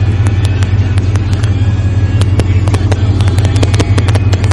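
1991 Chevrolet 1500's cammed 350 small-block V8, bored .040 over, idling with a loud, steady low rumble. Sharp, irregular ticks sound over it and come more often after about two seconds.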